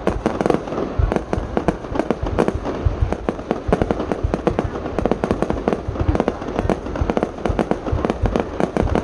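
Aerial fireworks display bursting in a rapid, continuous barrage of bangs and cracks, many shells a second overlapping with no pause.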